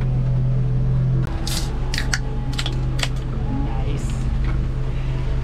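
A steady low engine hum with a string of sharp clicks and taps starting about a second and a half in.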